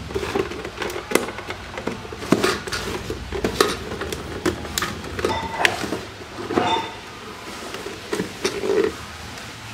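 Plastic case of a toy electronic money bank being pried apart by hand: irregular clicks and knocks of plastic, with a few short creaks near the middle.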